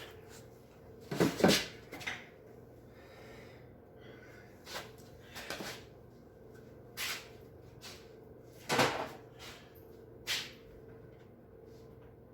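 A string of separate knocks and clunks, about seven in all, the strongest about a second in and near nine seconds in, from objects being handled, over a faint steady hum.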